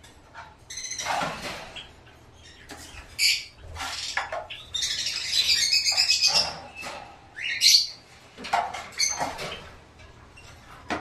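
Small cage birds chirping and chattering in short high bursts, with a busier run of overlapping calls in the middle.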